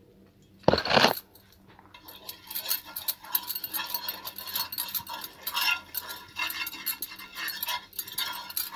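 A metal spoon scraping and clinking against a hot iron tawa while ghee is spread over it, a busy run of short scrapes and taps with a faint metallic ring. A single louder scrape comes about a second in.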